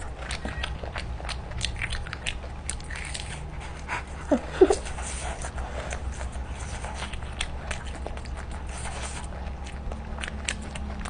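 Close-miked mouth sounds of eating skewered street-food balls: many small wet clicks and crunches of biting and chewing. A brief pitched sound about four and a half seconds in is the loudest moment.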